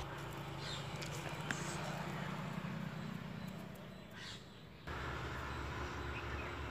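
Outdoor background sound: a steady low hum with birds calling, among them a crow cawing. The sound dips about four seconds in and comes back abruptly just before five seconds.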